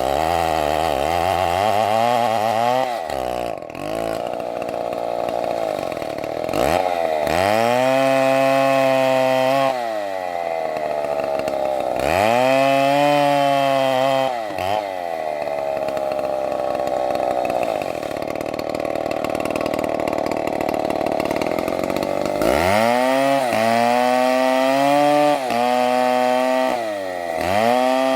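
STIHL two-stroke chainsaw revving up to full throttle and falling back to a lower speed several times while cutting wood, each high-speed run lasting a few seconds.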